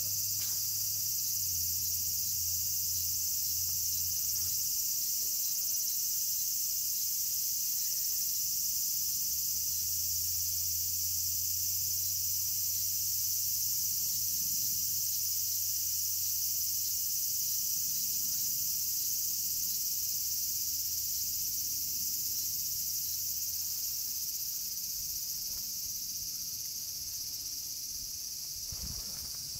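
Steady, shrill chorus of insects in summer, with a low steady hum underneath and a few faint knocks near the end.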